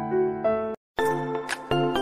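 Background music: a gentle melody of held notes cuts out about three-quarters of a second in, and after a moment of silence a different, brighter tune with short, high, tinkling notes begins.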